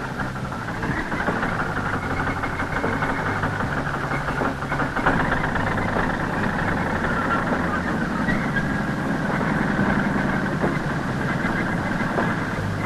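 A tractor engine and a tractor-drawn forage harvester run steadily as green fodder is chopped and blown into a trailer. A constant low engine drone sits under a denser mechanical chopping and blowing noise, without change in speed.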